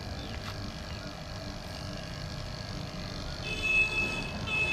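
Refrigeration vacuum pump running steadily as it evacuates the split AC's copper lines before the refrigerant is released. A high, thin whistle joins it twice near the end.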